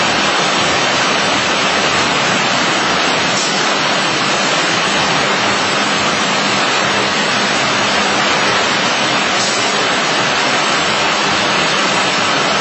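Busellato Jet 200 RT CNC router running, its spindle cutting a nested sheet under the dust-extraction hood: a loud, steady rushing noise with a faint low hum and no breaks.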